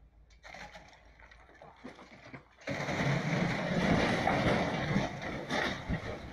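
A mass of roof ice and snow breaking loose and crashing down onto an entrance canopy, starting suddenly about two and a half seconds in as a heavy rushing rumble that lasts about three seconds, with a couple of sharp knocks near the end as it fades.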